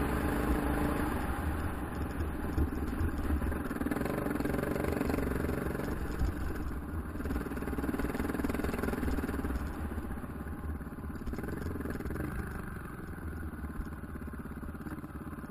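KTM 690 Enduro's single-cylinder four-stroke engine running at low trail speed, with a brief swell in revs about eleven seconds in, then settling lower and quieter near the end.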